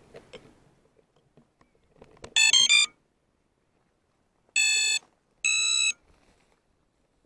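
FPV drone's motors sounding their electronic speed controller start-up tones on power-up: a quick run of three short tones of different pitch, then two longer, steady beeps about a second apart. This is the signal that the ESCs have powered up and are ready to arm.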